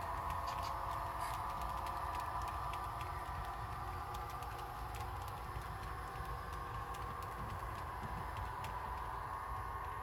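Model passenger train cars rolling over the track, their wheels clicking irregularly over rail joints over a steady hum, easing off slightly after a few seconds as the train moves away.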